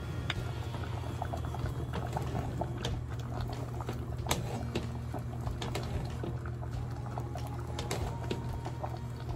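Metal ladle stirring a pot of simmering broth: liquid sloshing and bubbling, with scattered small clicks of the ladle against the pot. Quiet background music and a steady low hum run underneath.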